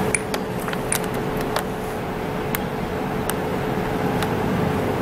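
A steady machine hum with one constant tone, like a fan running, under scattered light clicks and taps from acrylic being brushed onto a fingernail. The clicks come thickest in the first two seconds.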